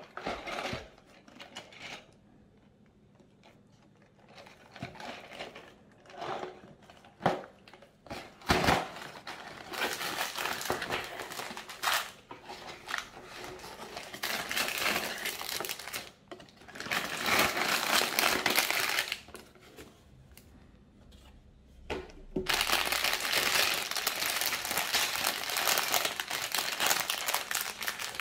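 A cardboard LEGO box being handled and opened, with scattered short knocks and scrapes at first. Then the clear plastic bags of LEGO pieces crinkle in long stretches as they are taken out and handled.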